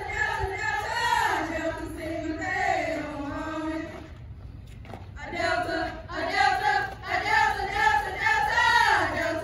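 A line of sorority new members chanting in unison at a probate, a sung chant whose pitch rises and falls. It breaks off for about a second and a half around four seconds in, then resumes.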